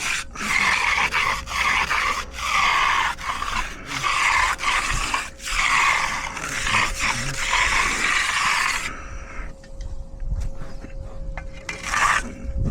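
A hand tool scraping across wet concrete in repeated strokes, each about a second long, as the slab is worked and finished. The strokes stop about nine seconds in, leaving a few quieter scrapes.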